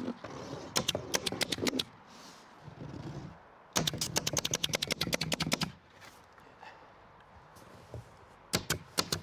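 Pneumatic stapler firing staples through synthetic roofing underlayment into plywood sheathing in rapid runs of sharp clicks, several to about ten a second. There is a short run about a second in, a longer one in the middle, and another near the end.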